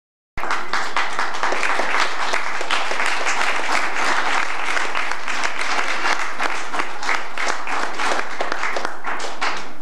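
A crowd applauding steadily. It starts just under half a second in, after a short gap of silence.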